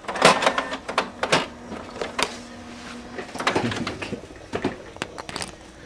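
A quick, irregular series of sharp clicks and knocks, a dozen or so, bunched in the first and last seconds.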